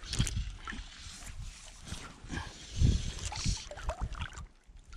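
Shallow sea water sloshing around a wading angler's legs, with uneven low rumbles and rustles close to the microphone.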